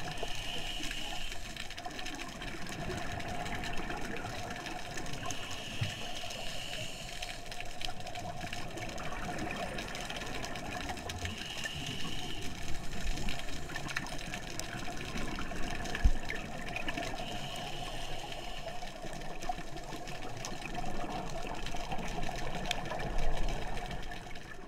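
Underwater sound of a scuba dive: a steady wash of water noise, with a short hiss about every five to six seconds, the rhythm of the diver breathing through a regulator, and louder bubbling a few times.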